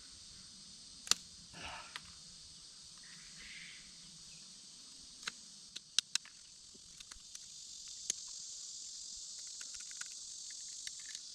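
Sharp clicks and small ticks of glass flakes snapping off as an arrowhead's notches are knapped: a loud snap about a second in, a cluster of snaps around six seconds, then lighter ticks. Behind them runs a steady chorus of insects.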